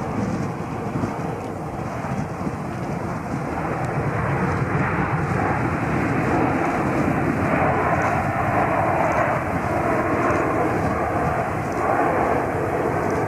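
Airliner passing along the runway: a broad rushing engine noise that grows louder over the first several seconds, then holds steady.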